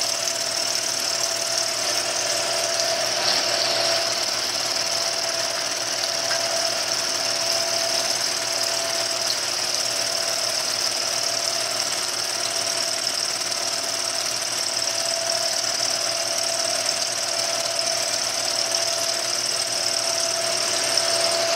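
A Bridgeport milling machine's 0.625-inch end mill at about 700 RPM cutting a full-depth, full-width slot in a block of aluminum. This first pass is the heaviest. It is a steady cutting noise with a high whine over it.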